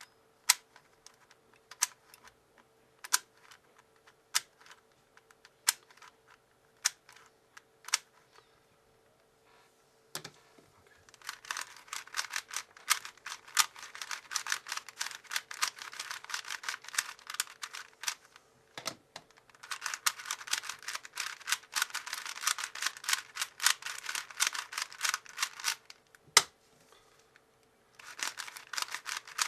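Plastic YUGA speedcube being turned by hand. First come single sharp clicks about a second apart, then long runs of rapid clicking as the layers are turned fast, broken by two short pauses.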